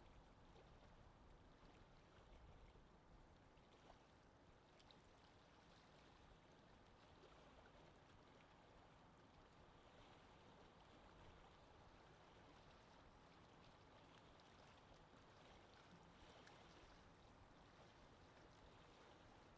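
Faint, steady wind ambience: an even rushing hiss with no gusts or breaks, and a few soft ticks scattered through it.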